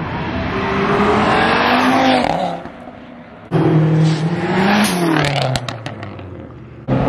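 Cars pulling away hard under acceleration, engines revving and fading as they go, in short clips cut together. The first fades out about two and a half seconds in. The next starts abruptly a second later with a rising then falling engine note and a short run of sharp cracks before it too fades.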